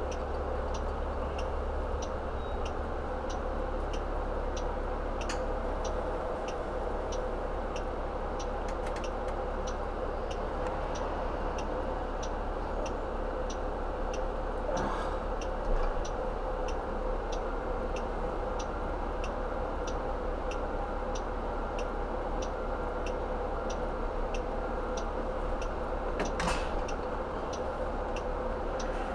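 A car's indicator relay ticking steadily, about four clicks every three seconds, over a low steady engine hum heard from inside the cabin.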